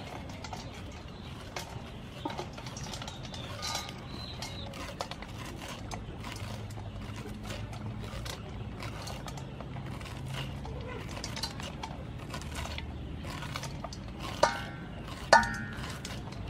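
Knife slicing kernels off a cob of white corn, with many small clicks as the kernels fall into a stainless steel bowl. Two sharper metallic knocks with a brief ring come near the end.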